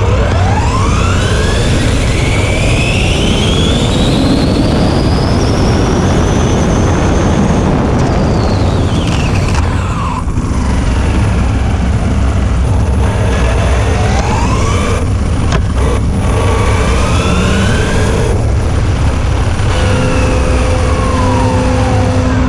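Arrma Limitless V2 RC speed car's electric motor whining as it accelerates: the pitch climbs steeply for about seven seconds, drops away around ten seconds in as the car slows, then rises and falls again on a second, shorter run. Heavy wind and tyre rumble on the car-mounted camera runs underneath.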